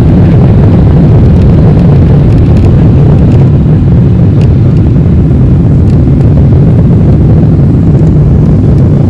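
Boeing 777-300ER's GE90 jet engines at takeoff thrust, heard from inside the cabin: a loud, steady deep roar through the takeoff roll and liftoff.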